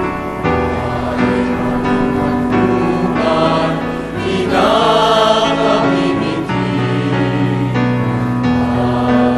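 A choir singing slow, sustained chords, with fuller, higher voices swelling in about halfway through.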